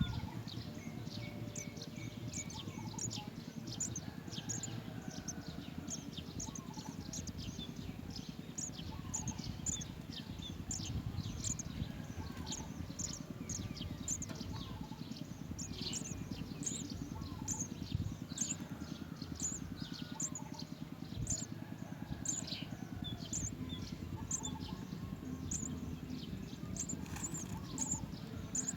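House sparrows chirping: short, high chirps repeating a couple of times a second over a steady low rumble.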